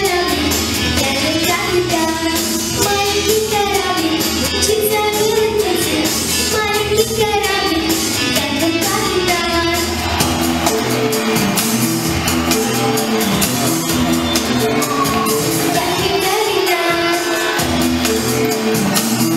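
A young girl singing a children's pop song into a microphone over a pop backing track with a steady beat.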